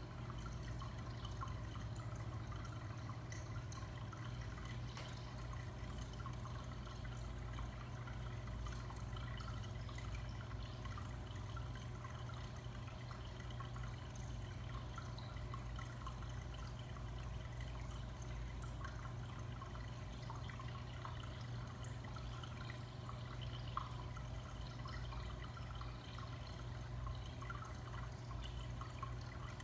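Aquarium filter running: water trickling with faint scattered drips over a steady low hum.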